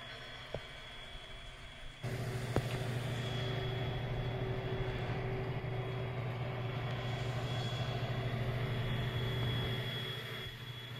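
Steady low hum of a small motor in an opened DLP projector, with a faint whine above it. The hum comes on abruptly about two seconds in, with a click just after.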